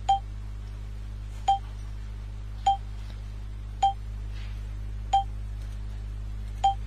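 Short single-pitch electronic beeps, six of them spaced a little over a second apart, from a pulse oximeter sounding its pulse tone with each detected heartbeat. A steady low mains hum runs under them.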